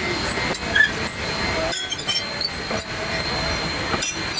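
Narrow-gauge railroad cars rolling slowly past close by: the wheels clunk over the rail joints a few times at uneven spacing, with short high squeaks from the wheels.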